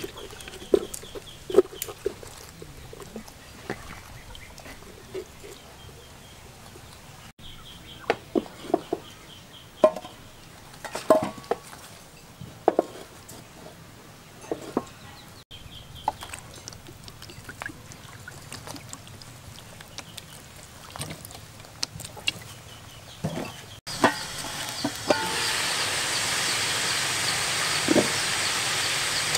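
Scattered short knocks and clatter of a large metal cooking pot being handled, with chickens clucking in the background. About 24 seconds in, a steady hiss of the pot of chicken and baby corn boiling takes over.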